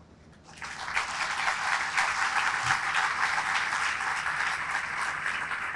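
Audience applauding, a dense patter of many hands clapping that starts about half a second in and holds steady.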